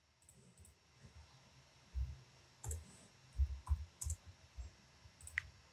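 Soft, scattered clicks of a computer mouse and keyboard while drawing in CAD software, about ten of them starting about two seconds in.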